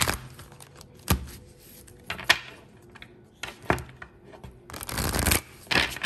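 A deck of oracle cards shuffled by hand: a few sharp card slaps about a second apart, then a longer rustle of shuffling near the end.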